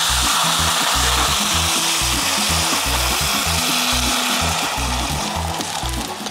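Sake poured into a hot frying pan of seared sea bream heads, hissing and sizzling loudly as it boils off in steam. The sizzle eases off near the end.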